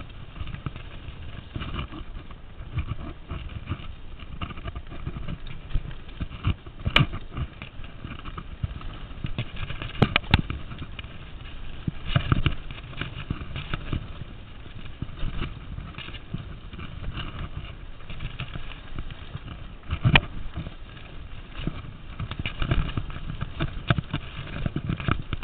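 Specialized Riprock mountain bike rolling fast over a bumpy dirt trail, heard from a handlebar-mounted camera: a continuous rattle and clatter of the bike and mount over roots and ruts, with a few sharp knocks from harder hits.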